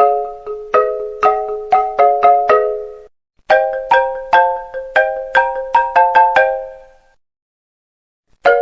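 An iPhone ringtone: a melody of struck, ringing chord notes in two quick phrases. The second phrase dies away to silence about seven seconds in, and the tune starts again right at the end.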